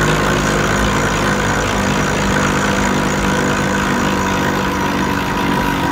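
Catamaran's engines idling steadily at the dock, a constant, even engine hum with hiss.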